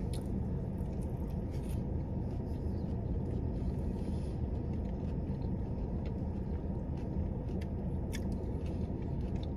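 Steady low rumble inside a parked car with its engine running, with a few faint clicks of a fork in a plastic salad container and quiet chewing.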